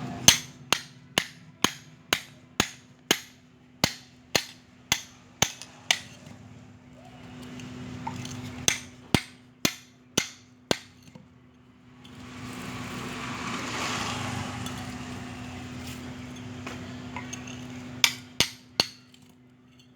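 Hammer blows on an old fridge compressor being broken open for scrap: a run of about a dozen metallic strikes, roughly two a second, then five more after a short pause. A few seconds of rustling, scraping noise follow, then three quick strikes near the end.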